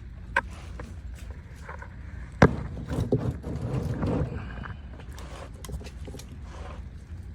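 Hand work under a car: a sharp knock about two and a half seconds in, then a couple of seconds of clattering and scraping, with scattered small clicks, as parts are handled while fitting the new oil filter.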